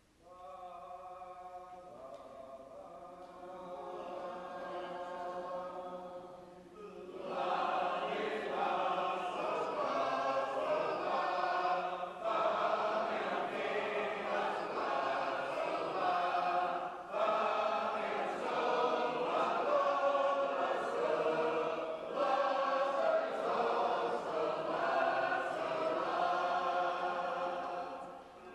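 Shape-note singing: a group singing unaccompanied in several-part harmony. A quieter held chord for the first seven seconds or so gives way to the full group singing loudly, with short breaks between phrases.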